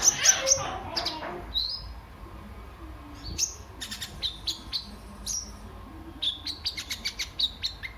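Kolibri ninja, a small sunbird, singing high sharp chirps: a dense fast burst at the start, then scattered single notes, then a quick run of chirps near the end.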